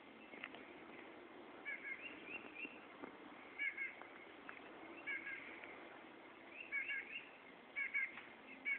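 Small birds chirping: clusters of short, high calls repeating every second or two, over a faint steady low hum.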